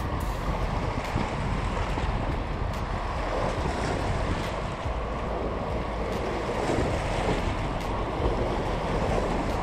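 Steady wind buffeting the microphone over small waves lapping and splashing against shoreline rocks.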